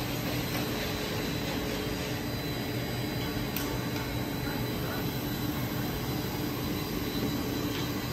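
Steady workshop machinery noise: an even rush with a low hum under it.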